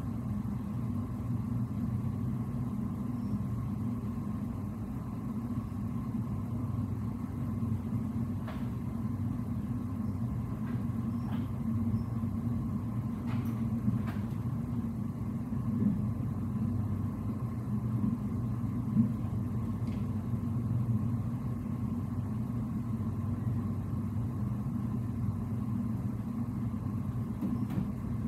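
Steady low hum of a ship's machinery heard on the bridge while under way, with a faint steady tone above it and a few light clicks about halfway through.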